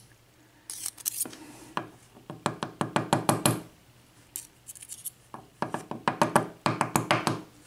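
Quick runs of small sharp metallic clicks and taps, in two spells, as the pins and parts of a gutted padlock cylinder are handled.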